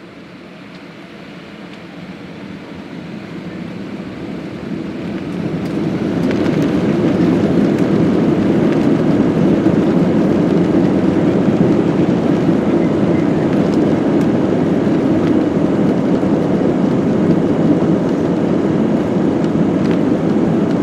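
Airbus A319's jet engines spooling up to takeoff power, heard inside the passenger cabin. The noise swells over about the first six seconds, then holds loud and steady.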